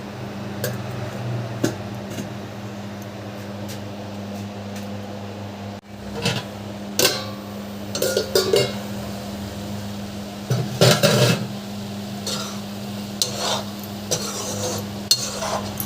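Kitchen utensils clinking and knocking against pots and pans: scattered knocks and clinks, with a louder cluster about two-thirds of the way through, over a steady low hum.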